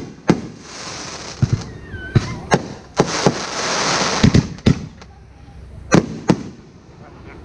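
Aerial fireworks bursting overhead: a run of sharp booms, about nine in seven seconds, over a dense crackling hiss that swells in the middle.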